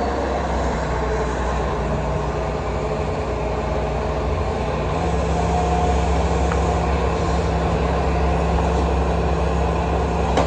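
Hitachi hydraulic excavator's diesel engine running steadily, its low note stepping up and getting a little louder about halfway through as the steel-cutter arm is worked.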